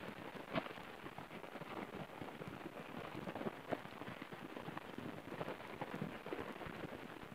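Eurasian eagle owl tearing and crunching at frozen prey with its bill: a continuous, irregular crackle of small snaps and clicks.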